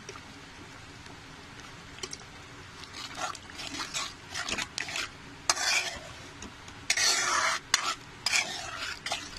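Metal spoon stirring and scraping a thick masala gravy in a kadhai, in irregular strokes that start about three seconds in and grow louder toward the end.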